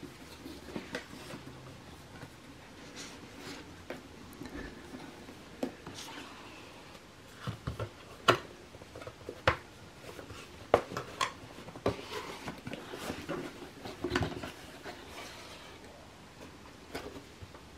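Cardboard gift box being handled and opened: a series of sharp taps and knocks of the box and lid against the table, clustered in the middle, with soft rustling of the shredded-paper packing.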